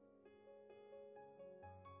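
Quiet background music: single clear notes struck one after another about every half second, with a low sustained note coming in near the end.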